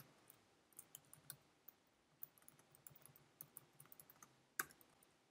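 Faint typing on a computer keyboard: a quick run of light key clicks, then one firmer keystroke near the end.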